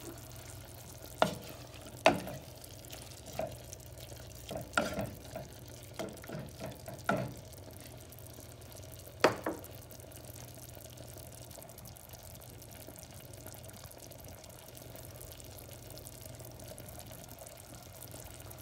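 Stirring a pot of snake gourd and potato curry: about seven sharp knocks and scrapes of the utensil against the pot over the first ten seconds, then only a steady faint low hum.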